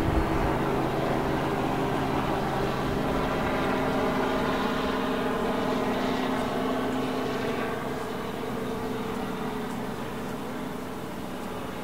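A steady engine drone with many held tones, easing off gradually over the last few seconds.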